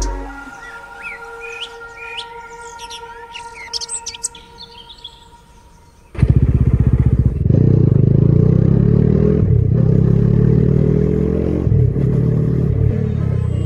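Birds chirping for the first few seconds, then a motorcycle engine cuts in suddenly about six seconds in and runs loud and steady.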